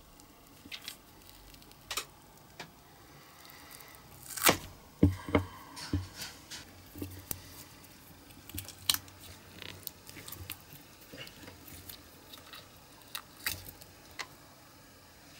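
Small handling sounds of a silicone mold being worked with a metal pick and flexed by hand to free the master part: scattered clicks and taps with soft rubbery squishes, the loudest cluster with a few dull knocks about four to six seconds in.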